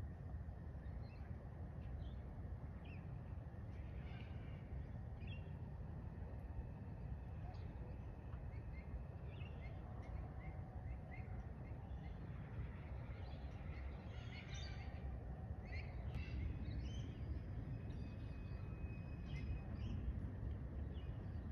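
Birds chirping and calling on and off, busier in the second half, over a steady low outdoor rumble.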